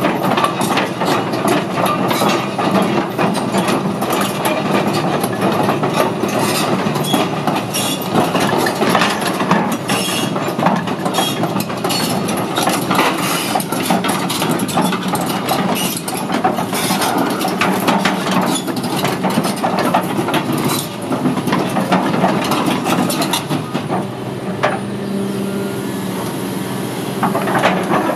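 Doosan DX300LC-3 crawler excavator travelling on its steel tracks: a diesel engine drone under a continuous rattling clatter of track links. About 24 seconds in the clatter thins out and the engine and hydraulics hold a steadier hum as the bucket works.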